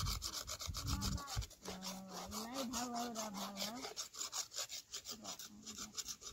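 Hand tool rasping in quick, even strokes against a buried plastic water pipe, working a hole into it for a tap-off connection.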